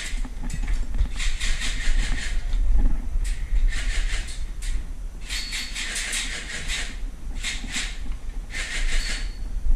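Close-up movement of a player creeping along a corridor with debris on the floor: gritty, scuffing footsteps and rustling kit in bursts about a second long, over a low rumble of handling noise.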